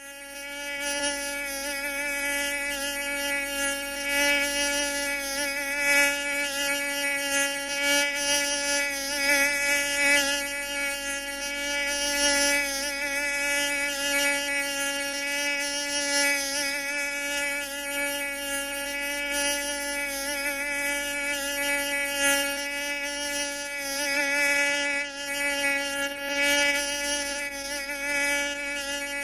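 3D sound effect of a mosquito in flight: a continuous high buzzing whine with many overtones, holding a steady pitch while its loudness swells and fades again and again.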